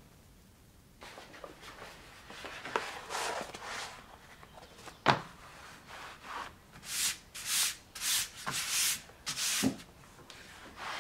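A sheet of leather laid down and slid about on a cutting mat on a wooden workbench: hands rubbing and dragging the leather, one sharp knock about five seconds in, then a run of short swishes near the end.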